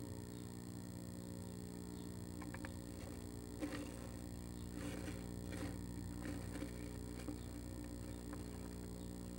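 Female northern flicker shifting about in a wooden nest box: a handful of short scratches and rustles from her claws in the wood shavings from about two seconds in, over a steady low hum.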